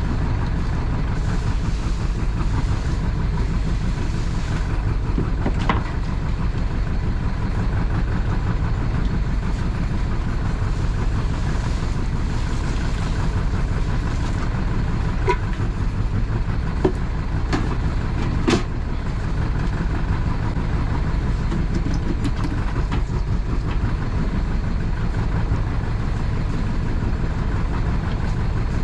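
A fishing boat's inboard engine running steadily while under way, a dense even low rumble. A few brief sharp knocks stand out around the middle.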